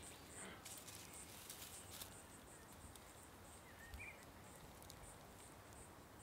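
Near silence: faint outdoor ambience with small high insect chirps repeating about three times a second, and one short chirp about four seconds in.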